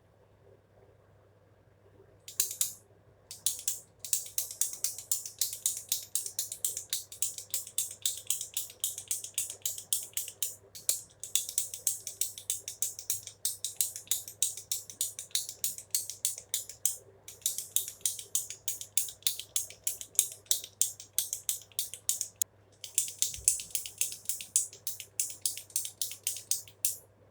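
Clicking fidget pen being clicked rapidly and repeatedly, several sharp clicks a second in long runs with a few brief pauses.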